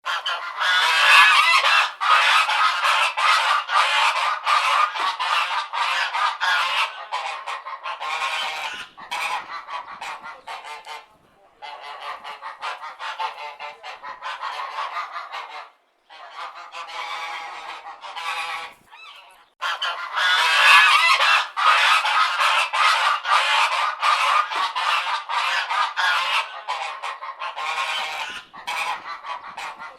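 Domestic geese honking very loudly in rapid, overlapping calls. The honking comes in several long bouts that break off briefly a few times.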